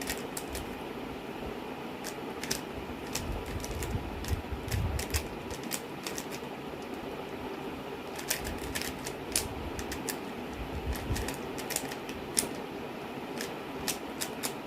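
Rubik's cube being turned quickly by hand: irregular clicking of the plastic layers in quick runs with short gaps, over a steady background hiss.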